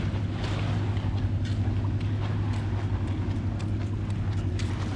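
A steady low engine drone with an even hum, with faint scattered ticks over it.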